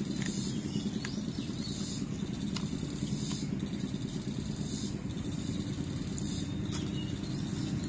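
A steady low mechanical hum, like a small engine running, with faint chewing clicks over it now and then.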